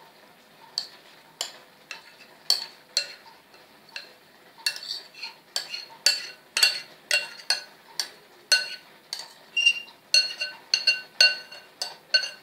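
Metal spoon scraping and knocking against a glass bowl while thick raita is scraped out of it: a run of sharp clinks that ring briefly, sparse at first and coming faster from about halfway through.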